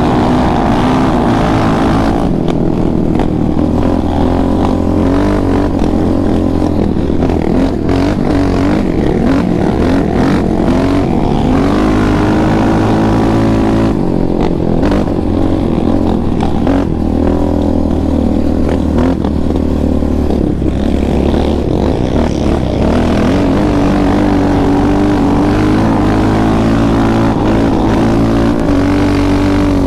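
Yamaha Raptor 700R quad's single-cylinder four-stroke engine running under way on a dirt trail, heard from on board. Its pitch rises and falls as the throttle is worked.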